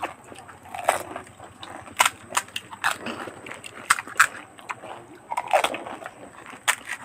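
Crisp fuchka (pani puri) shells cracking as they are poked open and bitten, with irregular sharp cracks and crunching from two people eating.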